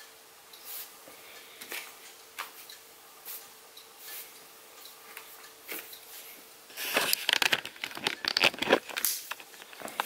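Faint steady hum with a few light clicks, then from about seven seconds in, loud crackling and rubbing of the camera being handled and moved.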